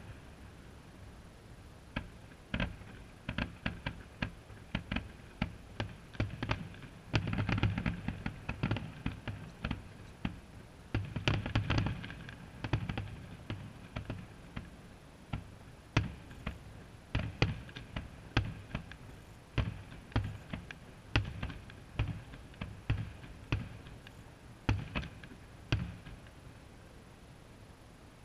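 Aerial fireworks shells bursting: a long string of sharp bangs at uneven intervals, with faster flurries about a quarter and about two fifths of the way through.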